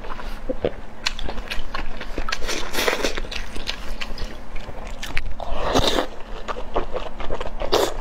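Close-miked eating sounds: wet chewing and biting of soft, broth-soaked oden fish cake, with many small squelches and mouth clicks and a louder, longer wet sound about five and a half seconds in.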